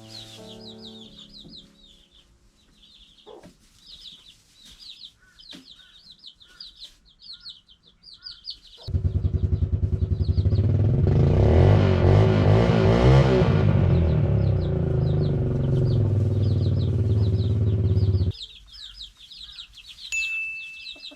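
Chicks peeping in quick, repeated high chirps. About nine seconds in, a loud motor starts running with a steady pulsing beat, and it cuts off suddenly about nine seconds later.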